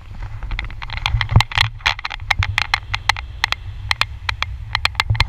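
Wind buffeting an action camera's microphone during a parasail ride: a steady low rumble with rapid, irregular crackling clicks over it.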